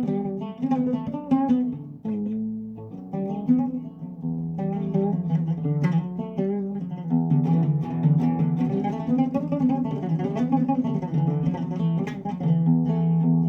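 Music: a plucked string instrument playing a quick, ornamented melody of a traditional Arabic song.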